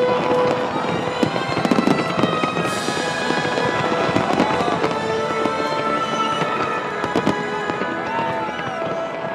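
Fireworks display going off in a steady run of crackles and pops, with music playing underneath.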